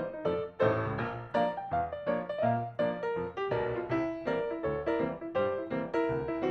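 Background piano music: a steady run of notes over a repeating bass line.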